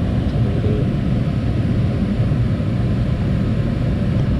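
2012 Bryant Legacy Line gas furnace running with its burners lit: a steady low rumble of burner flames and fans.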